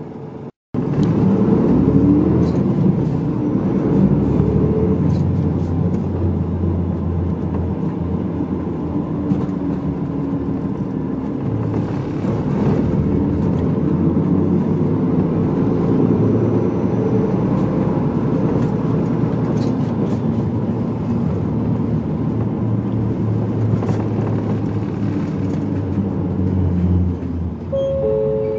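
Medium-size route bus under way, heard from inside the cabin: steady diesel engine and road noise, the engine note slowly rising and falling as the bus pulls away and changes speed. The sound cuts out briefly just after the start, and a short two-note falling chime sounds near the end.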